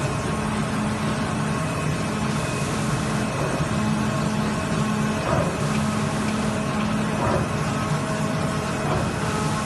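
CNC flatbed cutting machine running, a steady mechanical noise with a low hum that cuts in and out every half second to a second as the cutting head moves.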